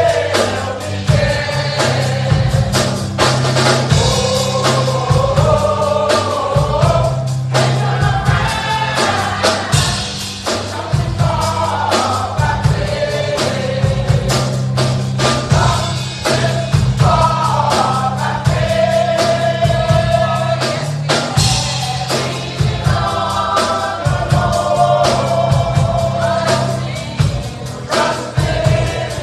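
Gospel choir singing with a band: voices in harmony over bass and drums.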